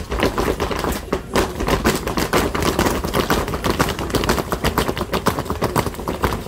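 Dancers' hard-soled shoes stamping Huaylash zapateo footwork on a concrete floor: a fast, dense run of sharp taps, several a second.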